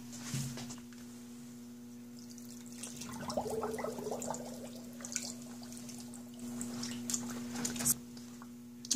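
Water sloshing and dripping in a stainless steel sink as gloved hands press mesh bags of wet alpaca fleece under, with a stretch of gurgling about three seconds in as trapped air is pushed out of the fleece so it sinks. A steady low hum runs underneath.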